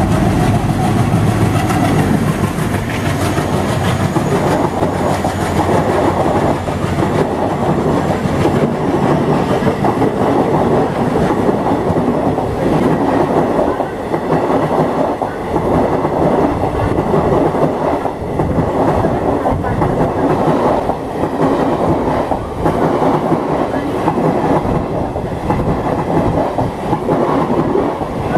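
WDG3A diesel locomotive with an ALCO 16-cylinder engine passing at speed with a passenger train. Its engine drone gives way after several seconds to the rhythmic clickety-clack of the coaches' wheels over the rail joints.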